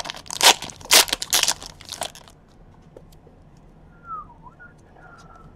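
A foil trading-card pack being pulled and torn open. There are several sharp crinkles and rips of the wrapper over about the first two seconds.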